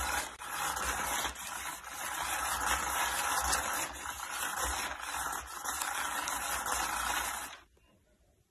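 Electric spinning cat toy running, its rotating arm whirring and rustling against the fabric cover with rapid irregular clicks, then cutting off suddenly near the end.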